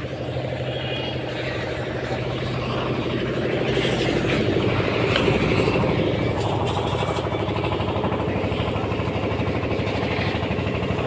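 An engine or motor running steadily, growing louder over the first few seconds and then holding level.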